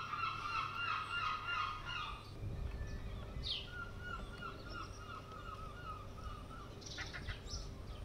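Seagulls calling: several overlapping calls in the first two seconds, then one gull's long run of short repeated notes through the middle.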